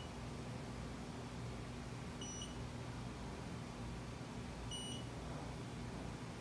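Two short high beeps about two and a half seconds apart, over a steady low hum. They are the touch-trigger signal of a Mitutoyo Bright 916 CMM each time its Renishaw TP2 touch-trigger probe's stylus touches the reference sphere.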